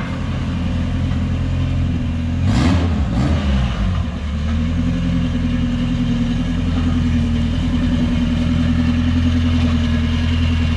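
Turbocharged Honda engine swapped into a Subaru Impreza, idling steadily while the car is driven at low speed. There is a short rise and fall in engine speed about three seconds in.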